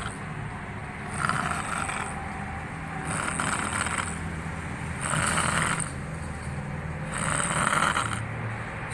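A person snoring with a rasping, rattling snore that repeats about every two seconds.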